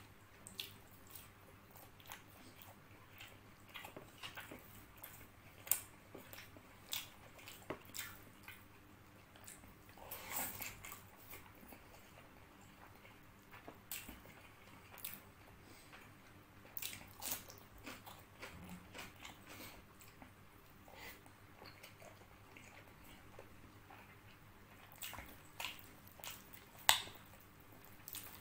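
Close-miked eating by hand: chewing and mouth smacks with scattered short clicks, mixed with soft wet squishing as fingers pull apart a whole spice-coated fried chicken.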